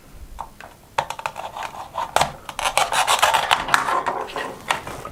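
Velcro pieces of a toy orange being pulled apart with a toy knife: a raspy, crackling tear with small clicks and knocks. It starts about a second in.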